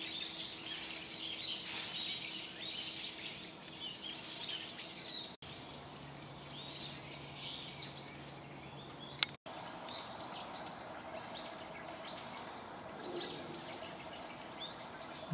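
Outdoor ambience with small birds chirping repeatedly in the background and a single sharp click about nine seconds in.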